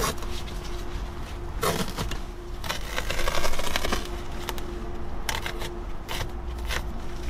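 Utility knife slicing and tearing a truck seat's fabric cover along its seam, with the cover and a plastic coverall rustling as it is pulled open. Irregular scraping and rustling comes in spurts, busiest about three seconds in, over a faint steady hum.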